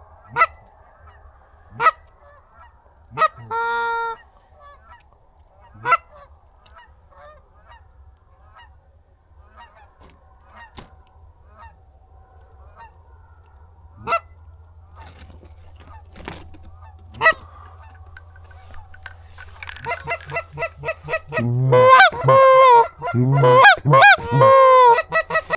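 Goose call blown by a hunter to lure geese: a few held honks and sharp short clucks spaced a few seconds apart, then a fast, loud run of honks and clucks over the last five seconds.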